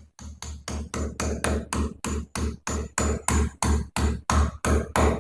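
Hammer striking a steel anchor bolt into a drilled hole in concrete, a steady run of sharp metallic blows about three a second.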